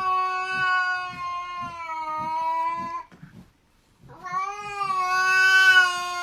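A cat yowling: a long, drawn-out call that ends about three seconds in, then a second long yowl starting about a second later.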